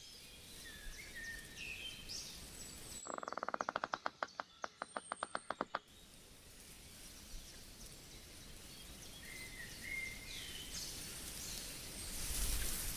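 Outdoor nature ambience with birds chirping in short repeated calls. About three seconds in, a fast pulsing call of some twenty notes, about seven a second, runs for nearly three seconds, and a hiss swells near the end.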